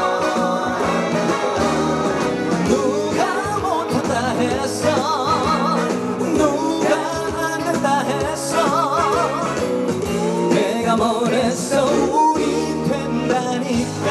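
A male singer sings a Korean trot song over band accompaniment, holding notes with a wide, wavy vibrato.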